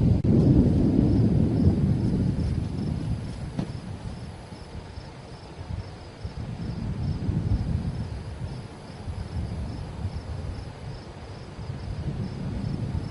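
Gusty wind buffeting the microphone: a low rumble that swells and fades in gusts, strongest in the first few seconds.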